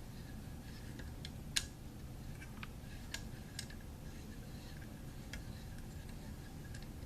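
Irregular light clicks and taps of small metal parts and tools being handled on an AR-15 upper receiver and handguard, the sharpest about one and a half seconds in, over a steady low hum.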